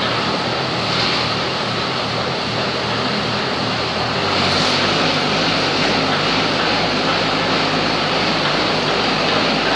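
Pauselli 700 hydraulic pile driver's engine running steadily as the machine moves, a little louder and deeper from about four seconds in.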